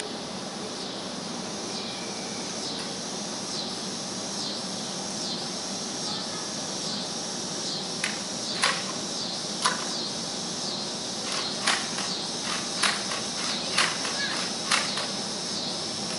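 Insects chirping in a steady, high repeating pulse, a little more than once a second. From about halfway, about eight sharp clicks in irregular succession: toy foam-dart blasters firing.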